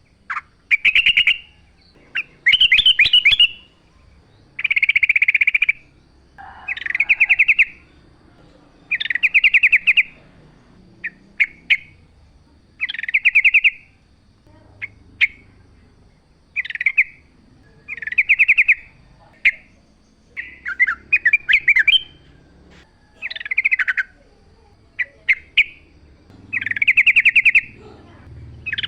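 Yellow-vented bulbul (trucukan) singing in loud, bubbling, chattering phrases, each about a second long, repeated every one to two seconds with shorter chirps between.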